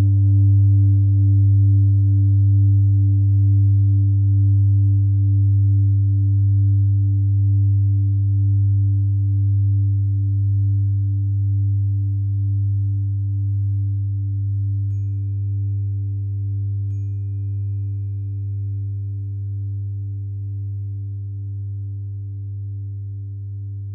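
Old singing bowl ringing out and slowly fading, its deep tone wavering gently in loudness. About fifteen seconds in, a 396 Hz tuning fork comes in with a pure, steady tone.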